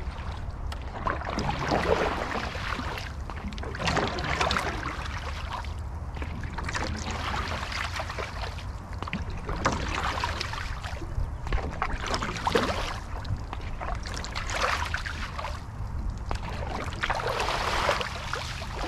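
Sprint canoe (C1) paddle strokes: the single-blade paddle catching and pulling through flat water, a rushing splash every two to three seconds over a steady low rumble.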